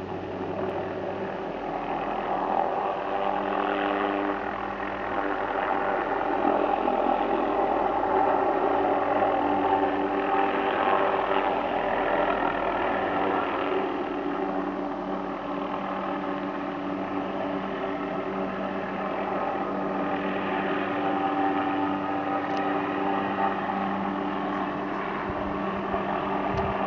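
Helicopter flying low, its engine and rotor running steadily, growing somewhat louder through the middle as it sweeps closer.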